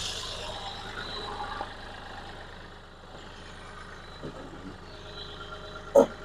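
Kioti CK4020 compact tractor's diesel engine idling steadily. One short, sharp sound stands out about six seconds in.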